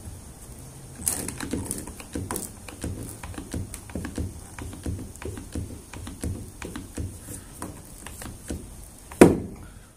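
One-handed trigger bar clamp being squeezed tight onto a timber frame, its ratchet giving a long run of rapid, uneven clicks, with one louder knock near the end.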